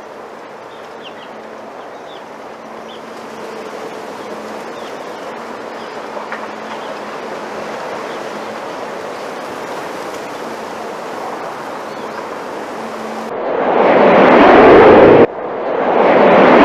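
Wind rustling through a bamboo grove: a steady hiss of leaves that slowly swells, with a few faint bird chirps. About thirteen seconds in it gives way to two loud booming whooshes of a logo sound effect, the first cutting off abruptly.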